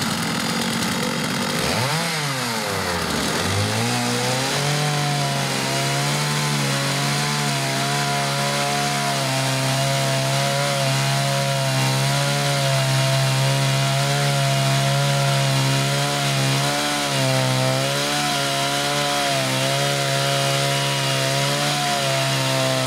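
Gasoline chainsaw mounted on a chainsaw mill, ripping a log lengthwise under load. Its revs rise and then dip sharply about two seconds in, then it settles into a steady, slightly wavering pitch as it cuts through.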